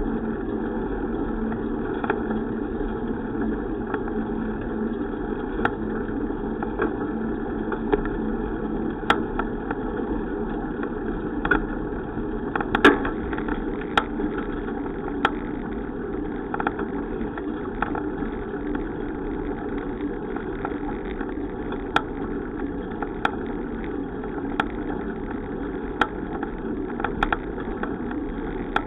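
Steady rushing noise of a moving bicycle, tyre and wind noise, with scattered sharp clicks and rattles.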